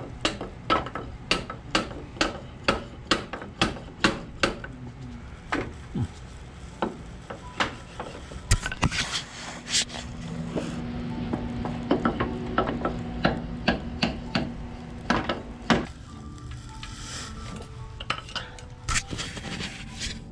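Hand tools clicking and clinking on metal fasteners: a run of sharp taps about two a second, then irregular clinks and rattles, and later another even run of taps.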